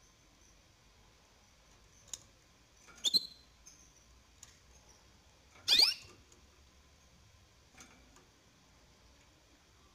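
Canary chirping: two short, sharp squeaky calls a little under three seconds apart, the second louder, with a couple of faint clicks between.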